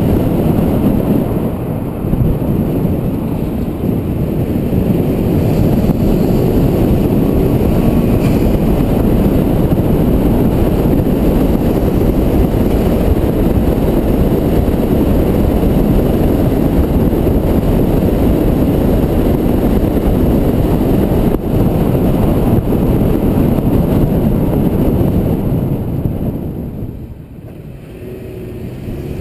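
2012 Chevrolet Cruze 1.4-litre turbo with a K&N Typhoon intake driving at street speed, heard from a camera mounted low on the outside of the car: a steady rumble of engine, tyres and wind that dips briefly near the end.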